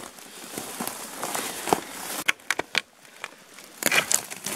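Footsteps pushing through dry brush and undergrowth: leaves rustling, then twigs and dry stems crackling and snapping in a series of sharp cracks from about halfway through.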